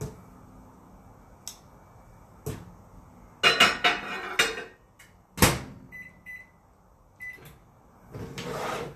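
Microwave oven being loaded and shut: a clatter, then the door closing with a sharp clack, followed by three short keypad beeps as the one-minute cook time is set.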